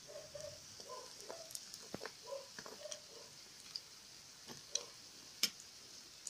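Mandazi sizzling in hot frying oil in a non-stick pan, a steady hiss, with a metal spoon clicking against the pan a few times; the sharpest click comes about five seconds in. Soft, short, repeated animal calls sound in the background.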